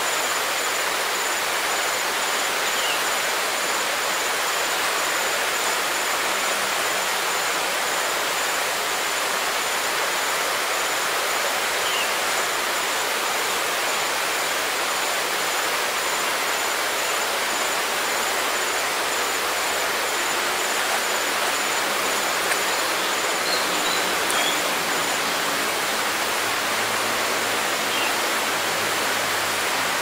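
Dense, steady hiss of forest ambience, with a few short, high bird chirps scattered through it. A thin, high pulsing tone runs until near the end, and a faint low hum comes in during the second half.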